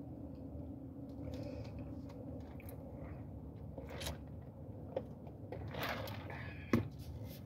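Close mouth sounds of chewing, then a sip through a straw from a large foam fountain-drink cup, with small clicks and a sharp knock near the end as the cup is handled. A steady low hum sits underneath.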